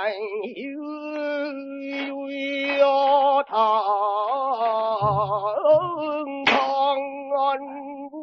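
A male pansori singer singing unaccompanied in a held, melismatic line: long sustained notes with wide, shaking vibrato that slide between pitches. The sound has the narrow frequency range of an early gramophone recording.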